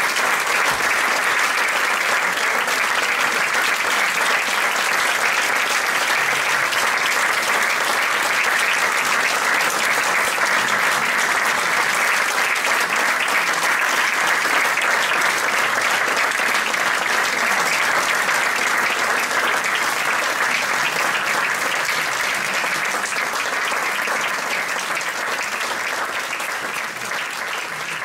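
Concert audience applauding: dense, steady hand-clapping that begins to fade near the end.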